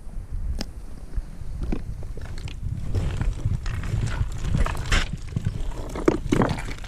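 Footsteps crunching and scraping irregularly on loose, steep ground, over a steady low rumble on the microphone.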